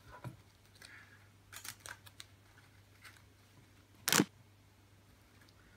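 Plastic card sleeves rustling and clicking softly as a deck of Magic cards is double-sleeved and handled. About four seconds in there is one much louder, short noise.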